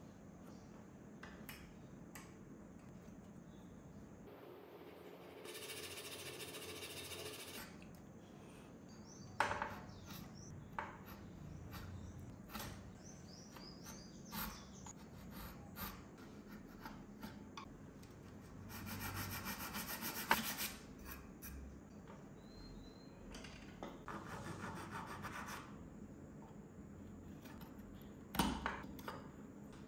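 A hand chisel and a flat file working a small block of wood clamped in a bench vise: short bouts of scraping and rasping strokes, broken by a few sharp knocks.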